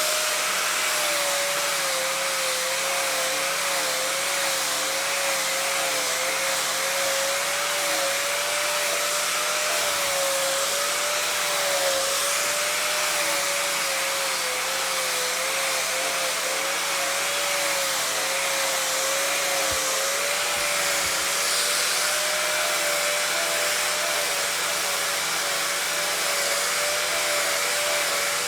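Electric power tool motor running continuously: a steady whine that wobbles slightly in pitch over a loud hiss.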